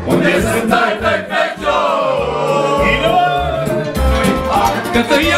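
Dance music with several voices singing over a steady beat.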